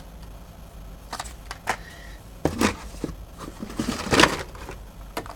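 Clicking and crinkling of Hot Wheels blister-card packaging being handled and shuffled: a few scattered sharp clicks and short rustles, busiest around the middle.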